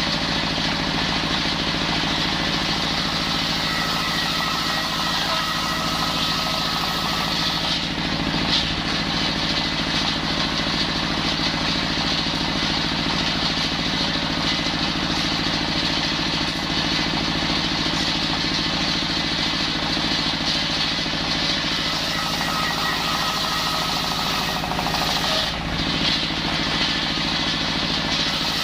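Engine-driven circular saw (serkel) running steadily, with a faint higher whine coming in twice, about four seconds in and again about twenty-two seconds in.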